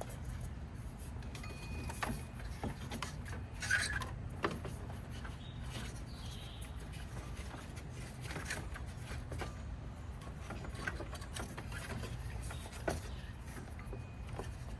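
Rubbing and scraping as a rubber serpentine belt is worked off the engine's pulleys by hand, with a few scattered light knocks, over a low steady hum.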